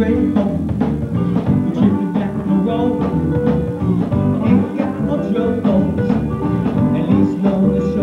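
Live band playing, with guitar to the fore over a steady drum beat.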